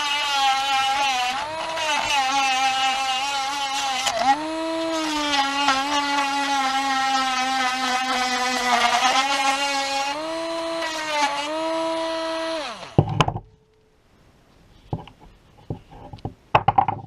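Parkside 12 V cordless rotary tool running at high speed with a small abrasive wheel, a high whine whose pitch sags several times as the wheel is pressed into the work and picks up again. About thirteen seconds in, the motor winds down and stops, followed by a few clicks and knocks of handling.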